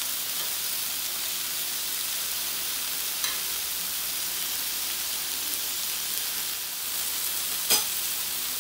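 Marinated portobello mushrooms and vegetables sizzling steadily on a hot cast iron grill pan, with a light clack about three seconds in and a louder one near the end.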